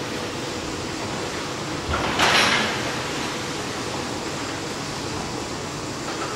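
Sectioned triple-expansion marine steam engine being turned over by its drive: a steady mechanical rush, with one louder swishing swell about two seconds in.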